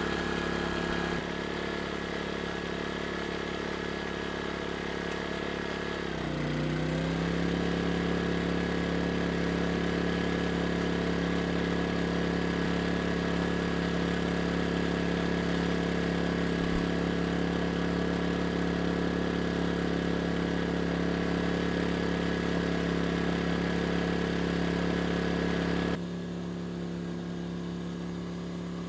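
Erayak 4500PD inverter generator's engine running steadily. About six seconds in, its pitch rises and it runs louder as the engine speeds up to carry a 1,500-watt load. Near the end the sound suddenly drops in level and turns duller.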